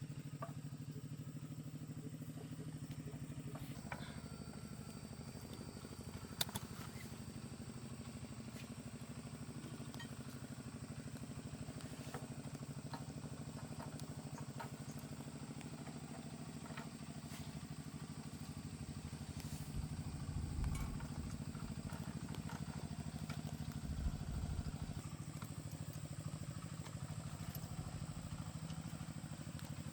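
A steady, fairly quiet low mechanical hum, like an engine running, with scattered faint clinks and a sharper knock about six seconds in.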